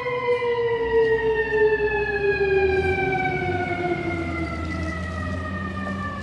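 Fire engine siren sounding one long, slowly falling wail as it winds down, over the low rumble of the truck.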